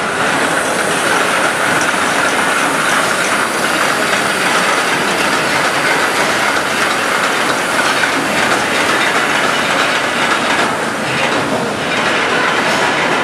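Cannery production line running: metal cans clinking and rattling against each other as they move along the conveyors and through the canning machinery, a loud, steady metallic clatter.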